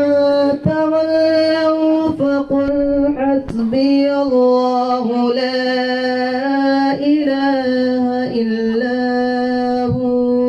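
A man's voice singing long, drawn-out notes into a microphone, with no instruments: the slow, melismatic opening of an Islamic devotional song (naat) at a milad.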